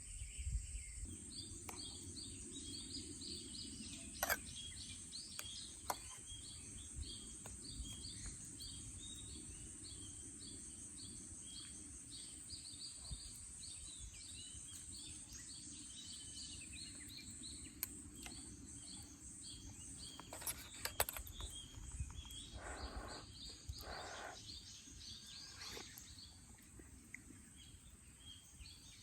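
Outdoor ambience: a steady high-pitched drone with a long run of quick repeated chirps over it for about the first half, a low steady rumble underneath, and a few sharp clicks.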